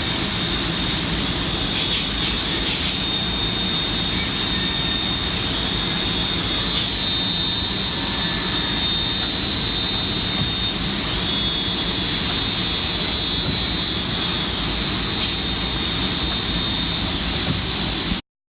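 Mazak Multiplex 6100Y CNC lathe running: a steady mechanical hum with a constant high whine over it and a few light clicks. It cuts off suddenly near the end.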